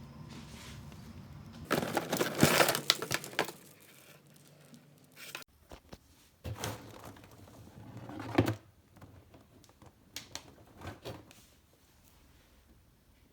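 Rustling, crinkling and light clicking of things being handled, loudest in a dense burst about two seconds in, then sparser clicks and rustles.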